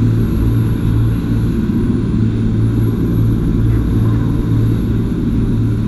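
Jet boat engine running with a steady, loud low drone.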